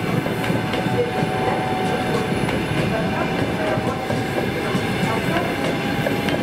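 Passenger coaches of a fast train rolling past at speed: a steady rumble of wheels on rail, with clicks from the rail joints and faint thin ringing tones above.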